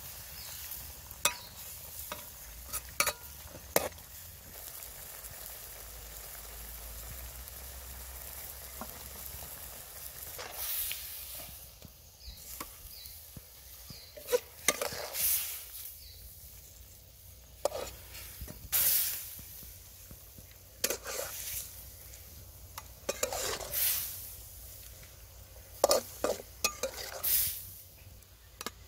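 Octopus sizzling in a metal wok while a metal spatula stirs and scrapes the pan. Later the metal ladle scrapes the wok and knocks against a plate as the octopus is served out.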